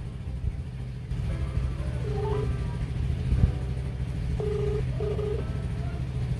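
Mobile phone ringback tone: short warbling beeps, including a double ring, as a call to the GPS tracker's SIM card rings through. It sits over background music with a steady low bass.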